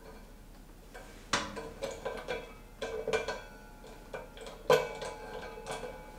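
Drum kit hardware and cymbals being set up: scattered, irregular light metallic taps and clinks, each louder one followed by a brief ringing. The loudest strike comes a little before the end.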